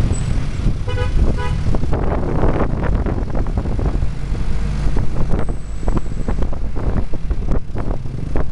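Motor vehicle driving along a street: a steady low engine rumble with road and rattle noise. About a second in, a vehicle horn toots twice in quick succession.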